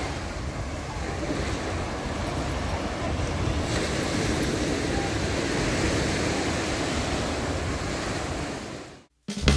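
Small waves breaking and washing up a sandy beach in a steady rush of surf, with wind on the microphone. The surf fades out near the end, and music begins right at the close.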